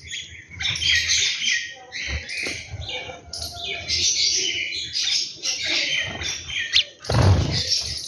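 A flock of house sparrows chirping, many short chirps overlapping, with a brief loud whoosh near the end.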